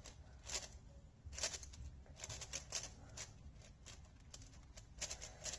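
Faint, irregular plastic clicks and clacks of a QiYi QiFan S 6x6 speed cube being turned by hand, layer after layer, as a parity algorithm is run.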